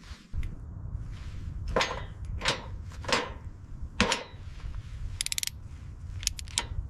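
Workshop tool and mechanism noises over a steady low rumble: four sharp strokes about two-thirds of a second apart, then a quick run of rapid clicks, and a few more clicks near the end.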